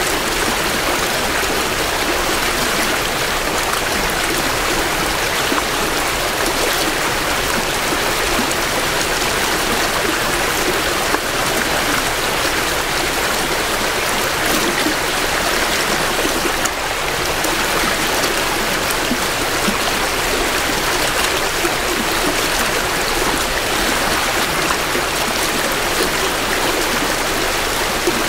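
A small creek running fast with spring runoff, a steady rushing and gurgling of water flowing over rocks, heard close to the water's edge.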